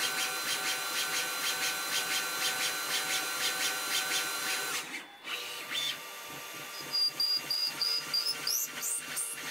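Tormach CNC lathe drilling into the end of a spinning bar with a twist drill under flood coolant: a steady spindle whine with a fast, regular ticking. About halfway the sound changes abruptly to another drilling pass, with a lower rhythmic pulsing, a string of short high squeaks and a few rising squeals near the end.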